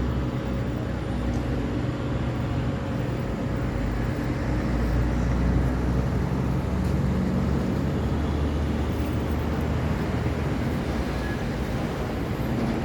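Steady city road traffic: the engines and tyres of passing vehicles, with a deep engine drone from heavy vehicles that swells about halfway through.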